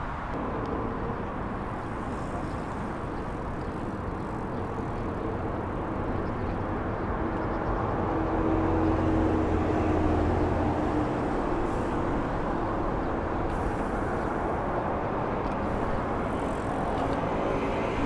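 Steady road traffic on a bridge, swelling about halfway through as a vehicle with a low droning hum goes by.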